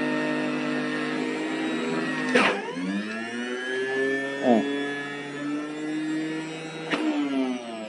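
Sinbo electric centrifugal juicer motor running while apple pieces are pushed through it. About two and a half seconds in, its hum drops in pitch under the load, then climbs back up. Near the end there is a click and the motor winds down, falling in pitch.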